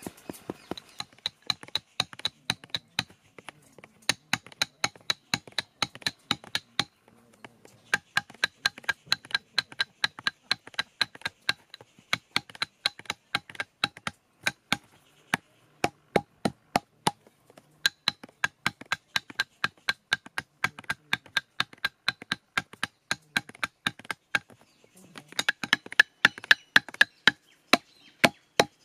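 Rapid ringing taps of a flat iron bar striking a bamboo rammer, packing dark firework composition into bundled paper tubes for ground spinners. The taps come about four a second in runs, with a few short pauses between them.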